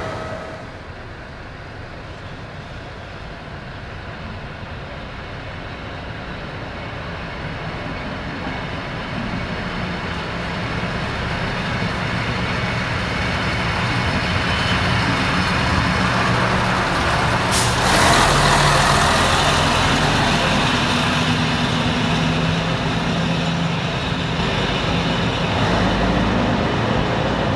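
ALn 663 diesel railcar's engines running and growing louder as it pulls out. About two-thirds through, a sudden burst of hissing noise cuts in.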